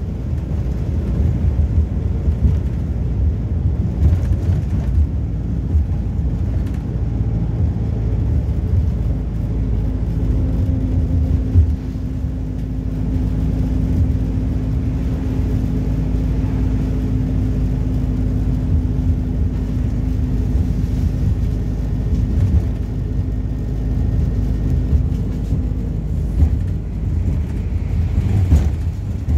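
MAZ-226 bus heard from inside the cabin while driving: steady engine and road rumble. A steady hum holds from about ten seconds in until a few seconds before the end, with occasional light knocks.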